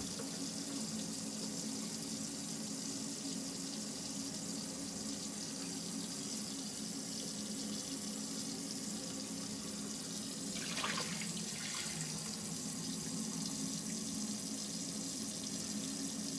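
Camper faucet running steadily into the sink, with a steady low hum underneath. This is a continuous hot-water draw from an Alde water heater, about four minutes and some five gallons in. Around ten seconds in, the sound of the flow briefly brightens.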